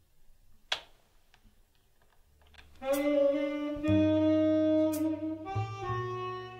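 A single sharp click about a second in. Then music starts near the three-second mark: a melody of long held notes, with a bass line coming in a second later and a light hit about every two seconds.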